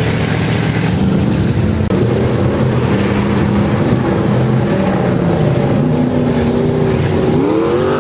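Off-road truck engine running hard, its pitch wandering up and down, with a quick rev rising sharply near the end.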